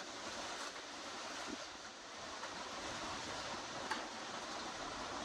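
Steady rushing storm ambience with no distinct events, typical of wind and rain in the trees as a thunderstorm approaches. There is a single faint click about four seconds in.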